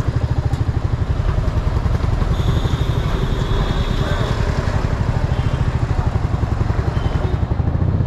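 Motorcycle engine running at low revs with a steady, rapid, even pulse.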